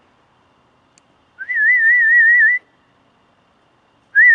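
A person whistling to call a pony: two warbling whistles whose pitch wavers quickly up and down, the first about a second long and the second starting near the end.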